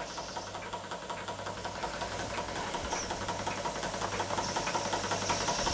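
Jensen Model 70 electrically heated model steam engine running steadily under full steam pressure, its quick, even beat slowly getting louder. A hiss of steam joins in about two-thirds of the way through.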